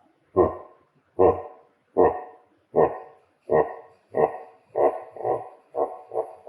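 A dog barking repeatedly, about ten short barks roughly one a second, coming a little faster near the end.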